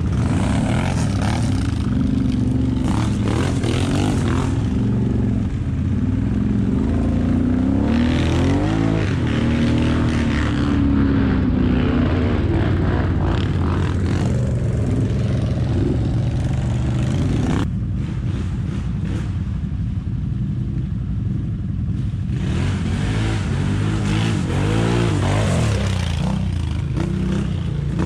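ATV engine running under load, its revs rising and falling again and again as it is ridden through mud.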